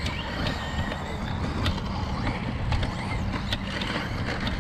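Electric RC short-course trucks (Traxxas 2WD Slash VXL, brushless) running laps on a dirt track: a steady rush of motor and tyre noise with a faint rising-and-falling whine near the middle and a few sharp clicks of loose dirt and gravel.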